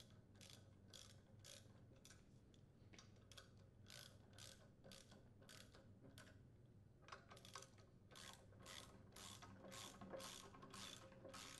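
Socket ratchet wrench clicking faintly as it is swung back and forth, about two clicks a second in short runs. It is tightening a flywheel puller to draw the flywheel off the crankshaft of a Kohler Command single-cylinder engine.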